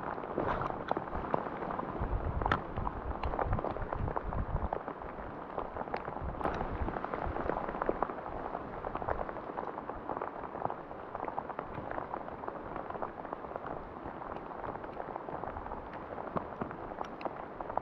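Steady rain falling, an even hiss dotted with many small ticks of individual drops. A low rumble sits under it for the first few seconds.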